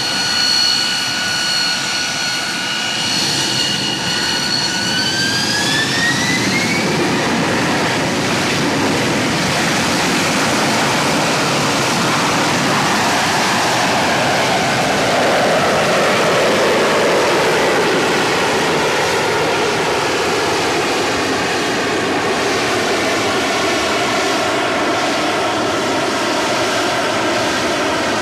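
AV-8B Harrier's Rolls-Royce Pegasus turbofan: a steady high whine that rises in pitch as the engine spools up about five seconds in, then loud steady jet thrust noise for vertical flight, its tone sweeping slowly in the middle.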